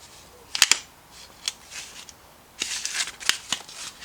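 Small metal lathe tools being handled and rummaged through in a box: a couple of sharp clicks about half a second in, another around a second and a half, then a denser run of clinks and rattles in the second half.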